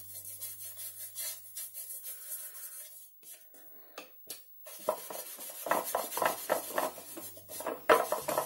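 Wad of cloth (a polishing 'muñequita') rubbing over a freshly waxed, painted wooden furniture panel, buffing the wax to a satin sheen. Faint rubbing at first, a short lull with a couple of light knocks about three seconds in, then brisk back-and-forth strokes about three or four a second from about five seconds in.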